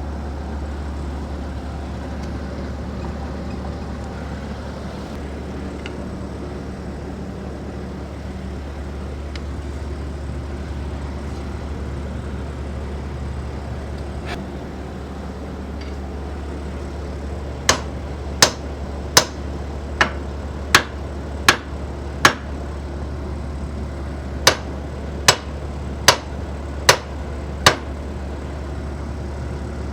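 A steady low hum, then a run of sharp, ringing hammer blows on metal: seven in quick, even succession, a short pause, then five more.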